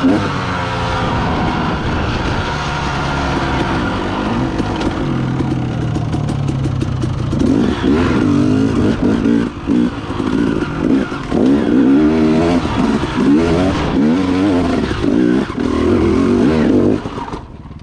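KTM enduro dirt bike engine running under load, its revs rising and falling constantly as the rider works the throttle over rough ground. The revs swing hard and fast through the second half, then drop away sharply near the end.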